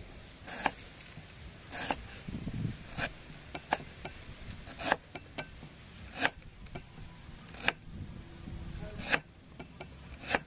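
Cleaver slicing through fresh galangal root onto a wooden chopping board: a crisp cut ending in a knock of the blade on the wood, about eight times at an uneven pace of roughly one a second.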